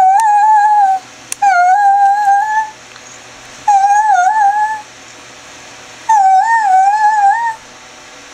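Greyhound vocalizing in four long, wavering whine-howls of about a second each: the greyhound 'roo' mixed with whining.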